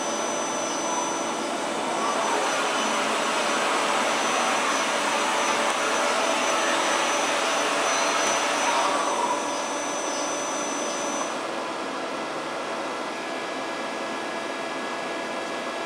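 FPT AREA M80 travelling column milling machine running: a loud, even hiss with a thin high whine over it. The hiss eases off about nine seconds in and the whine stops about two seconds later, leaving a quieter steady hum of the machine.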